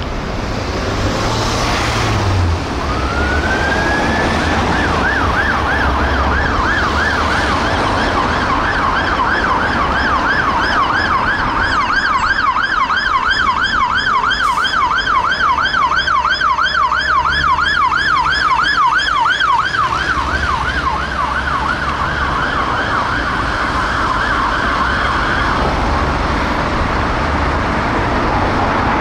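A Scania P280 fire engine's two-tone siren winds up about two and a half seconds in, then yelps rapidly up and down, nearly three times a second. It cuts off a few seconds before the end, over a steady rumble of engine and road traffic.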